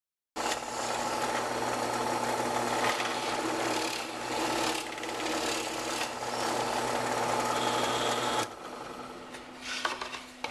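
Drill press running with a twist bit boring through a plywood board, a rasping cut over a steady motor hum. A little past eight seconds in the cutting stops, leaving a quieter hum, and a few knocks follow as the board is shifted on the table.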